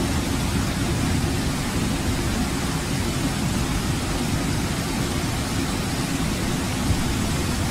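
Hurricane-force wind blowing steadily with driving rain, a loud unbroken rush, with a heavy rumble of wind buffeting the microphone underneath.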